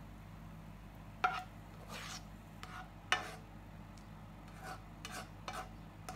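Spatula scraping and knocking against dishware as stir-fried bean sprouts are served: two sharp knocks, about a second and three seconds in, with softer scrapes between and after, over a steady low hum.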